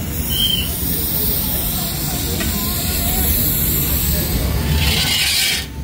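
Fog machine jet hissing steadily as it sprays fog, cutting off suddenly near the end.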